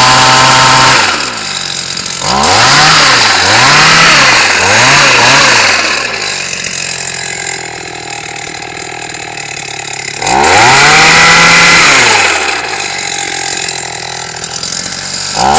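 Small engine of a ZEG olive harvesting machine, revved in surges. It runs high, drops back about a second in, then rises and falls about four times in quick succession. It then idles lower, surges again once near the middle, and picks up again at the very end.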